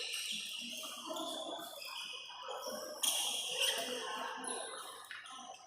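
Badminton rally on an indoor court: shoes squeaking on the floor and the shuttlecock being struck by rackets, with a sharp hit about three seconds in.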